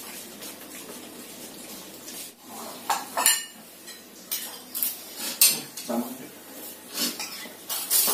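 Metal spoons clinking and scraping against plates and serving bowls as people eat and dish up food. Quiet for the first three seconds or so, then a run of short, sharp clinks about once or twice a second.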